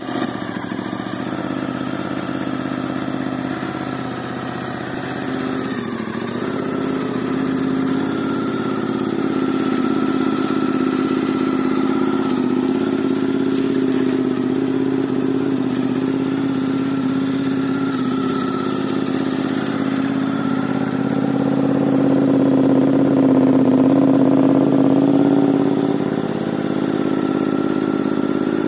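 A 2003 Honda VTR1000 SP-2's 999 cc 90-degree V-twin idling steadily through an aftermarket Ixil silencer. It gets a little louder for a few seconds about three quarters of the way through, then settles back.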